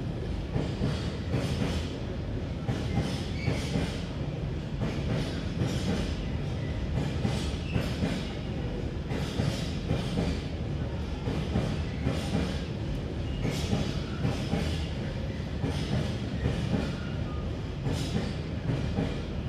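Freight train of hopper wagons rolling past: a steady low rumble of the wagons with a repeated clatter of wheels over the rail joints.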